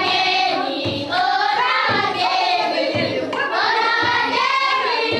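A group of children and adults singing together in chorus, with a steady beat of clapping about once a second.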